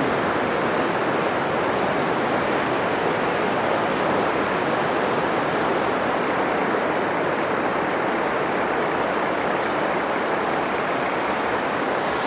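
Ocean surf breaking on a sandy beach: a steady, unbroken wash of rushing noise with no single wave crash standing out.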